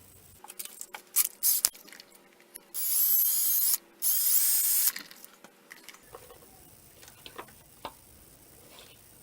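Small power drill run in two short bursts of about a second each, enlarging the wire holes drilled into a headlight part, with a high whine that wavers in pitch. Before the bursts come a few handling clicks, and light ticks follow.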